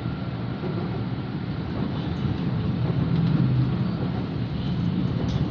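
Steady rumble of an LRT-2 light-rail train running along the track, heard from inside the passenger car, growing a little louder about halfway through.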